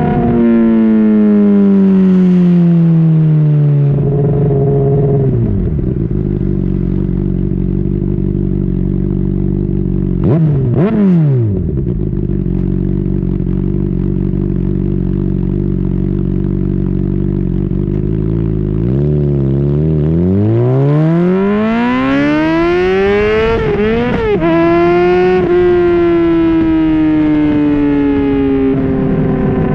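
2010 Honda CBR600RR inline-four with a Yoshimura slip-on exhaust, ridden on the road. The engine winds down at first, then runs steadily with a brief dip and pickup near the middle. About two-thirds of the way in it accelerates hard with a rising pitch, broken by two quick upshifts, then eases off and starts to rise again at the end.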